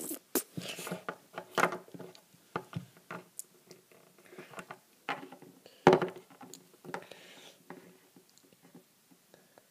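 Small plastic Littlest Pet Shop figurines being handled and set down on a tabletop: irregular clicks and taps, with the loudest knock about six seconds in.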